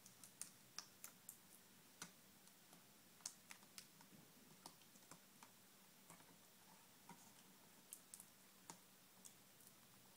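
Faint, irregular small clicks and taps of hands working a laptop's LCD panel and its display-cable connector, plugging the cable into the new screen.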